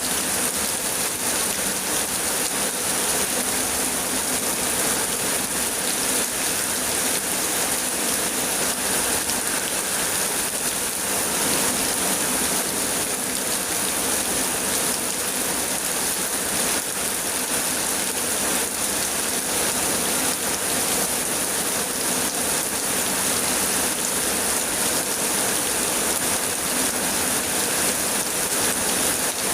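Super heavy rain pouring down steadily: a dense, even, high hiss with no let-up.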